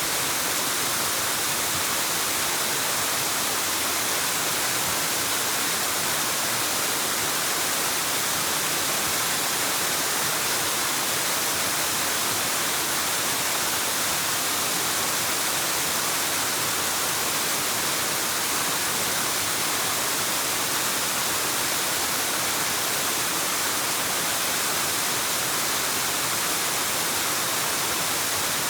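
Waterfall rushing: a steady, even hiss of falling water, heavier in the high end.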